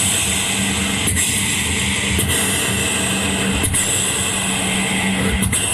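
Loud, dense music with a rock-like guitar-and-drums texture, steady throughout, with a few sharp hits.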